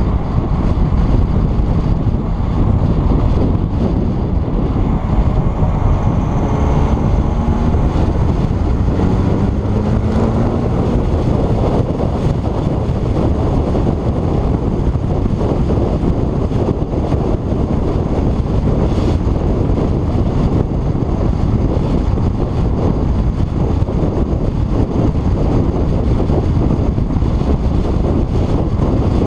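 Wind buffeting a car-hood-mounted microphone at road speed, with the car's tyre and engine noise underneath: a loud, steady rush. A faint rising engine note comes through briefly, about six to ten seconds in.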